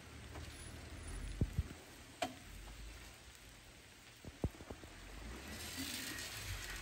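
Jeep Wrangler crawling up a rutted dirt trail in four-wheel low, its engine a low, distant rumble. A few sharp clicks and knocks are scattered through it, and a hiss rises near the end.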